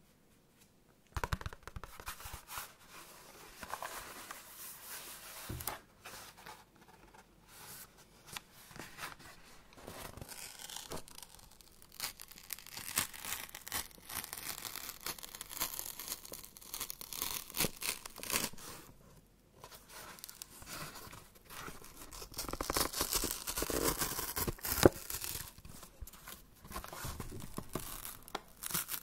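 A cardboard mailer's tear strip being pulled, the cardboard ripping open in irregular rasping stretches with short pauses. It starts about a second in, and the loudest tearing comes about three-quarters of the way through.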